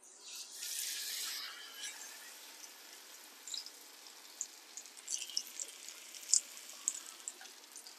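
Batter-coated potato lowered into a small pan of hot oil: a burst of sizzling hiss as it goes in, easing after a couple of seconds into a quieter steady sizzle with scattered small pops.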